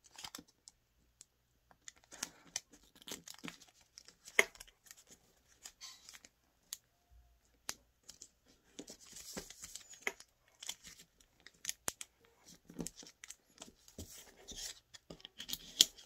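A square of colour paper being folded and creased by hand: irregular rustles, crinkles and sharp paper snaps, the loudest snap about four seconds in and another near the end.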